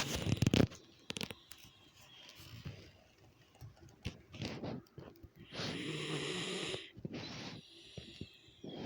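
Snoring: a loud snore right at the start, then a long pitched snore about five and a half seconds in lasting about a second, followed by a shorter breath.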